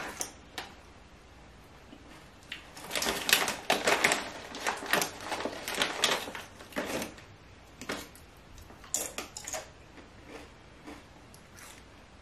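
Crisp cassava chips being crunched between the teeth close to the microphone: irregular crackling crunches, thickest from about three to seven seconds in and again around nine seconds.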